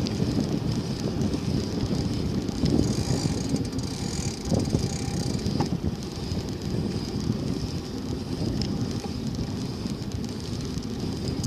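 Continuous rumble of wind on the microphone and rolling rattle while riding an onthel bicycle, with a steady high-pitched hiss over it and a few faint clicks.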